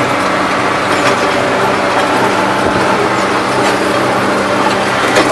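Turbocharged tractor engine running steadily under way in the field.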